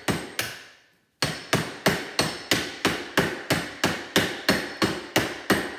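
Repeated hammer blows on a microwave oven transformer held in a vise, driving its copper winding out of the steel core. Two strikes come first, then after a pause of about a second a steady run of strikes follows, about three a second, each with a short metallic ring.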